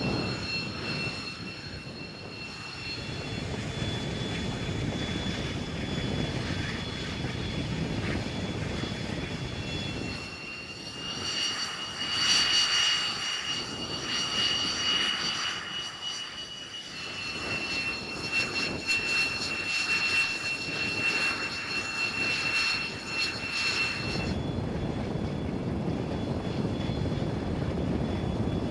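Jet aircraft engines running: a steady high turbine whine over a low rumble. The whine's pitch and loudness shift several times.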